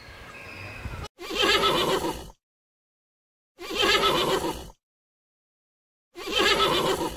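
Horse neighing three times, starting about a second in. Each whinny lasts about a second, with dead silence between them, and the three look identical, like one neigh repeated.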